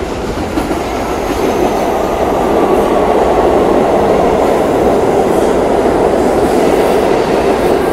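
New York City Subway R62A train pulling into an underground station and running along the platform: the loud rumble and rattle of the cars' steel wheels on the rails. It grows louder over the first two or three seconds as the train arrives, then holds steady as the cars pass.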